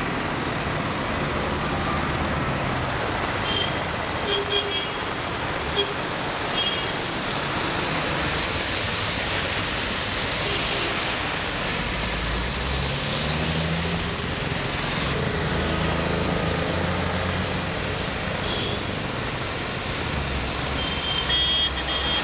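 Road traffic on a rain-wet street: cars and auto-rickshaws passing with their engines running over a steady hiss. A few short high-pitched tones come about four seconds in and again near the end.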